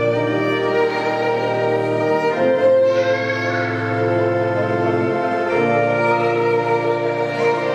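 Organ playing slow held chords over a steady bass, the harmony shifting about two and a half and five and a half seconds in.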